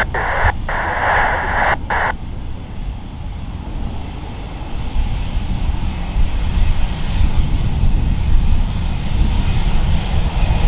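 Jet engines of a twin-engine airliner taxiing past: a steady rushing hum that builds louder over the second half as the aircraft comes close.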